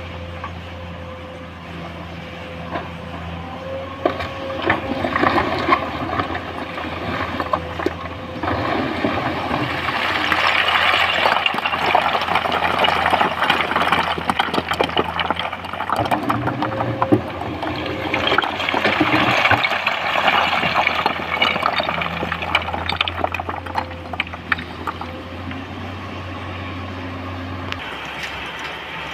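Komatsu PC200 excavator's diesel engine running steadily at quarry work, with two long spells of loose rock pouring and rattling, about ten seconds in and again about twenty seconds in.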